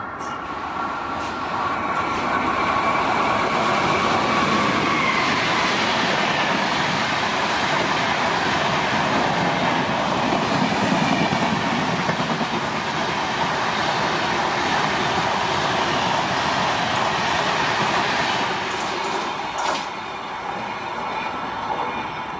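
Indian Railways passenger train passing at speed, its wheels clattering over the rail joints as the coaches go by. The noise builds over the first couple of seconds, holds steady, and dies away near the end.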